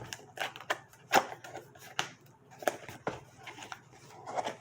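Packaging being handled and opened: a string of sharp clicks and taps, the loudest about a second in, over a faint steady hum.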